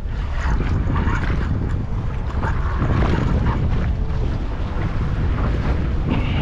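Wind buffeting the microphone on a boat under way in rough, choppy sea: a steady loud rumble with the wash of water beneath.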